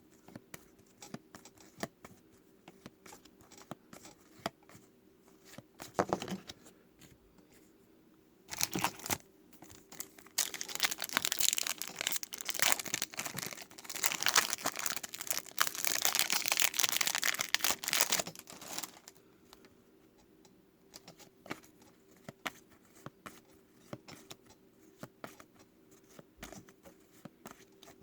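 A Topps trading-card pack wrapper being torn open and crinkled: a couple of short crinkles, then a long stretch of crinkling and tearing in the middle. Light clicks and taps from handling the cards come before and after.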